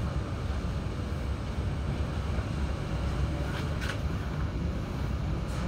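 Running noise inside a moving Z20500 double-deck electric commuter train: a steady low rumble of wheels on the track. A couple of short high ticks come a little over halfway through and again near the end.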